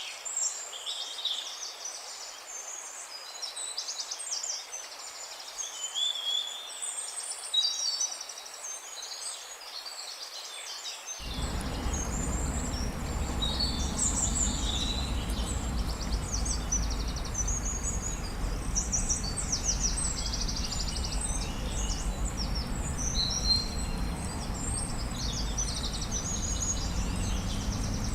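Many songbirds chirping and trilling at once, a busy dawn-chorus-like mix of high calls. About a third of the way in, a low, steady rumbling noise starts abruptly underneath the birds.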